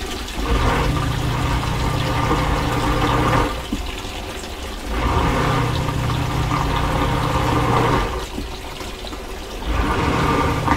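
Saniflo Sanivite drain pump's motor running in short runs of about three seconds, switching on and off repeatedly as a half-full sink drains into it: a steady hum that starts, stops, starts again, and kicks in a third time near the end, with draining water heard throughout. It never runs longer than a few seconds but keeps cycling, which the owner suspects means the pump is small for the flow.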